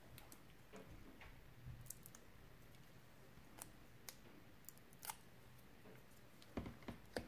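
Near silence, broken by a few faint ticks and light rustles as fingers peel the backing off small foam adhesive dots, with several ticks close together near the end.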